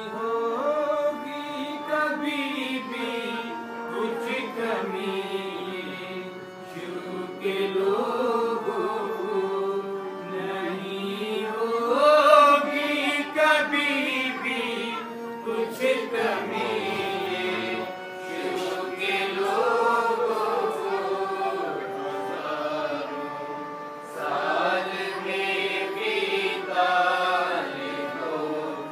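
Music: a single voice sings slow, long notes that glide up and down over steady held tones.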